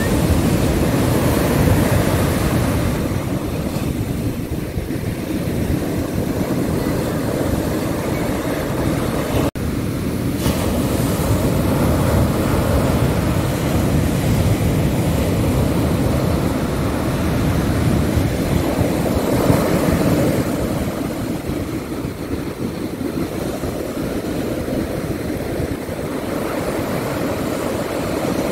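Ocean surf breaking on a sandy beach: a continuous, loud rush of waves that swells and eases every several seconds. The sound cuts out for an instant about ten seconds in.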